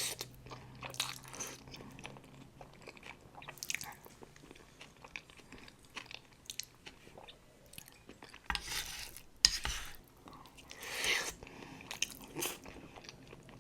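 A person chewing food close to the microphone, with many small wet mouth clicks throughout and a few louder noisy bursts about two thirds of the way in and again near the end.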